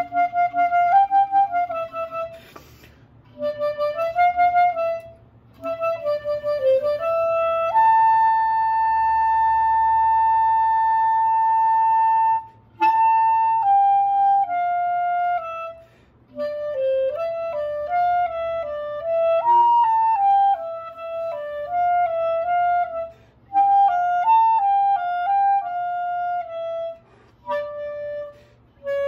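Unaccompanied clarinet playing a melody in short phrases, with a long held note from about eight to twelve seconds in and brief pauses between phrases.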